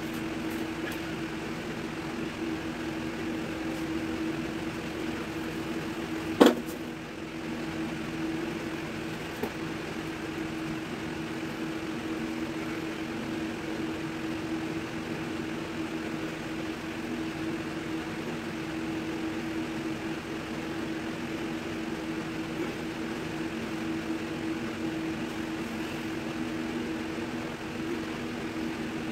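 Steady machine hum with a low, even drone, and one sharp knock about six seconds in.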